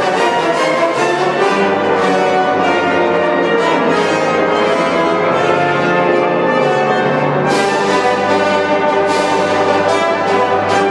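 Wind band playing a loud, full passage of a symphony, brass to the fore over a held low bass line, with sharp accented strikes in the second half.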